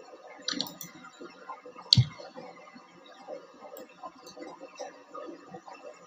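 Two computer mouse clicks: a sharp one about half a second in and a louder one with a low thump about two seconds in, over faint background noise.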